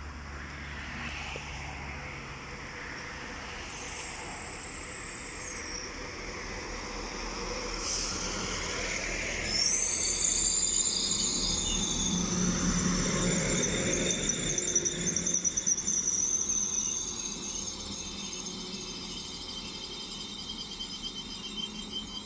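A Newag Impuls multiple unit running past the platform. Its wheels rumble on the rails louder and louder as it draws near. From about ten seconds in a set of high, steady whining tones rides over the rumble while it passes close, and it fades slowly after that.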